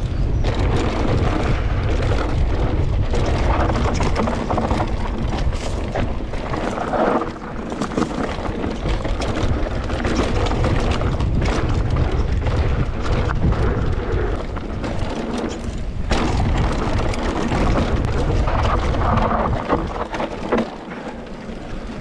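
An electric mountain bike descending a dirt trail: wind buffeting the camera microphone with a heavy low rumble, over tyre noise and the clatter of the bike rattling over rough ground. The rumble eases briefly about seven seconds in and again near the end.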